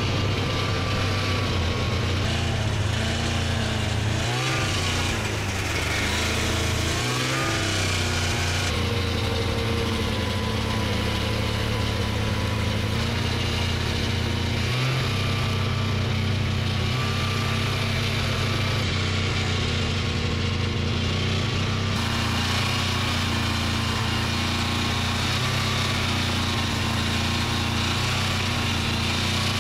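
Snowmobile engine running under way. Its pitch rises and falls a few times in the first several seconds as the throttle changes, then holds fairly steady.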